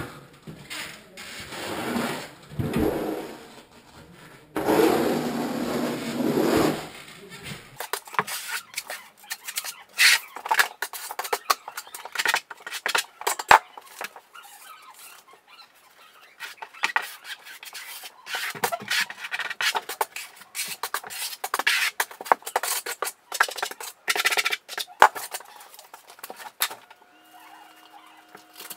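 Trowel and taping knife scraping and smoothing unmodified thin-set mortar over Kerdi-Band on foam shower wall board, in many quick, irregular scraping strokes.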